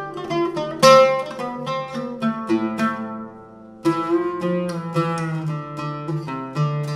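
Arabic oud with an American walnut back and red cedar top played solo: runs of plucked single notes over a low ringing note, a pause around the middle where the last notes ring and fade away, then the playing picks up again.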